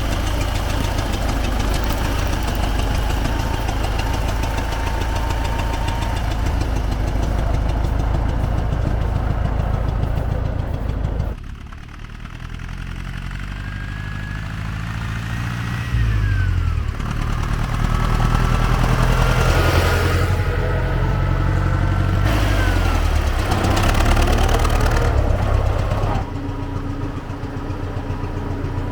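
T-40AM tractor's air-cooled diesel engine running as the tractor drives, its pitch rising and falling as it is revved. The sound drops suddenly about eleven seconds in and changes again near the end.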